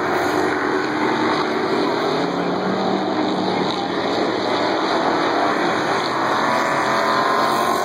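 Several dirt-track race car engines running together at racing speed as the field circles the oval, their pitch shifting as cars pass.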